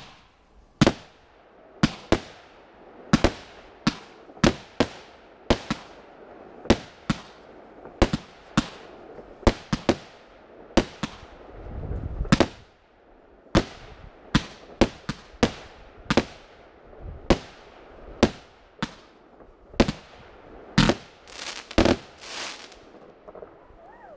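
Aerial fireworks shells bursting in a rapid series, dozens of sharp bangs at about one to two a second, each trailing off in a rolling echo. A low rumble swells for about a second near the middle.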